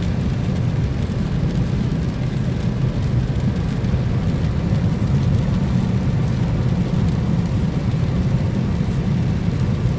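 Steady low rumble inside a moving car's cabin: tyres on a wet road and the engine at cruising speed.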